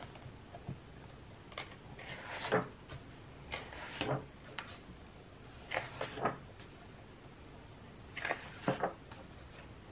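Paper pages of a colouring book being turned by hand, four times, each a short rustle ending in a soft flap as the page settles.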